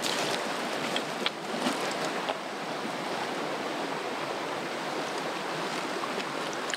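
Steady rush of running water, with a few faint clicks from hands and gear.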